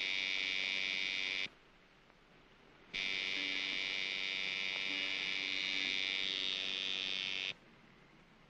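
Electric tattoo machine buzzing steadily in two runs: the first stops about a second and a half in, and the second starts about three seconds in and runs for some four and a half seconds.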